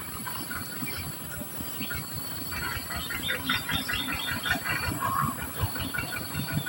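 Society finches chirping in a quick series of short, high calls, thickest in the middle. Low bumps and knocks run underneath.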